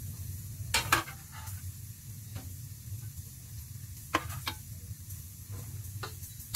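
Whole green bell peppers sizzling quietly in mustard oil in a pan, partly fried. A metal spoon clicks against the pan several times as they are turned: a few clicks about a second in, two about four seconds in, and one near the end.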